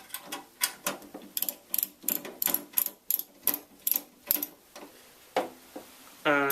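Screwdriver driving a screw into the motherboard mount in a PC case: a quick run of sharp, even clicks, about three a second, that slows and fades after about four and a half seconds.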